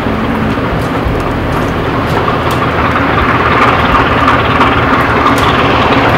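Slow-running diesel engine of a loaded inland cargo barge working upstream, a steady low beat, under a rushing noise that swells in the second half.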